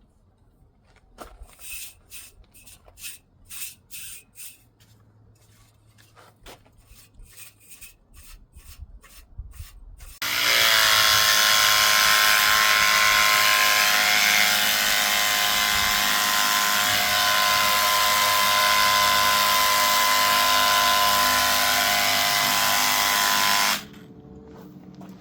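Light irregular clicks and rubbing, then an electric pressure washer starts about ten seconds in. Its motor spins up within a fraction of a second and runs steadily, a whine over a loud hiss, then shuts off abruptly near the end.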